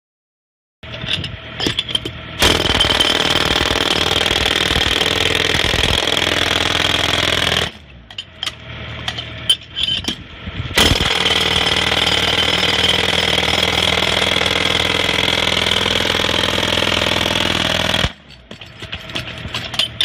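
Pneumatic jackhammer breaking concrete: two long runs of steady, rapid hammering, the first starting about two seconds in and the second about eleven seconds in, with short irregular bursts between them and near the end.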